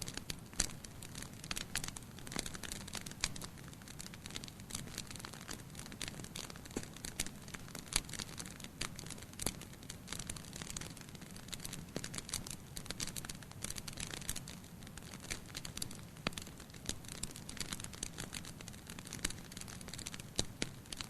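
Wood campfire crackling: irregular sharp pops and snaps from the burning wood, over a low steady rumble of the flames.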